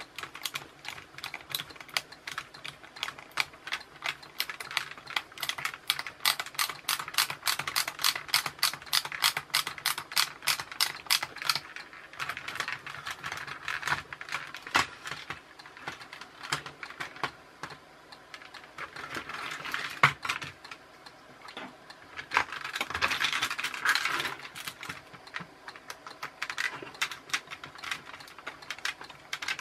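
Screwdriver work on a toy RC car's plastic wheels and chassis: a fast run of even clicking for the first dozen seconds, then scattered clicks and handling knocks, with one louder knock about twenty seconds in.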